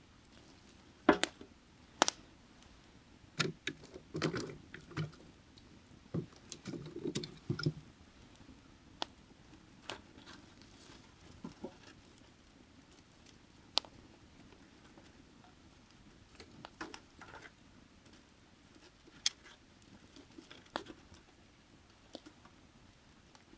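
Burning firewood crackling: irregular sharp pops and snaps, a loud pair in the first couple of seconds and a busy cluster over the next few, then scattered single pops. A faint steady creek runs underneath.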